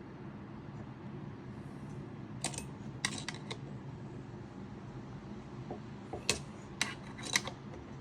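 Scattered metallic clicks of a size 8 wrench turning a brass threaded insert into the crossbow's bored-out magazine screw hole, in two small clusters about two and a half seconds in and again near the end, over a steady low hum.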